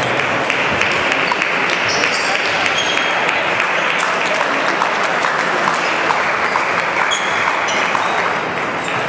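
Audience applauding steadily in a large hall, with voices mixed in behind it.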